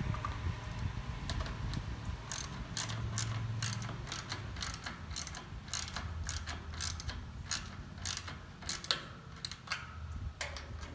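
Ratchet wrench clicking as the bolts clamping a plastic bumper bushing to a steel post are tightened down: a run of sharp clicks, two or three a second, starting about two seconds in, over a steady low hum.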